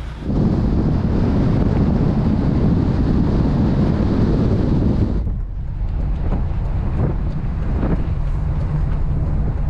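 Van on the move, with heavy wind buffeting the microphone for about the first five seconds. It then drops suddenly to a steadier, lower road and engine rumble.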